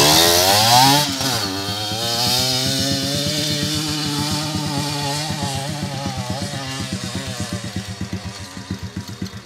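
Dirt bike engine revving hard as the bike pulls away, its pitch dropping at a gear change about a second in, then rising again and holding steady under load as it climbs a steep hill. The sound fades slowly as the bike gets farther away.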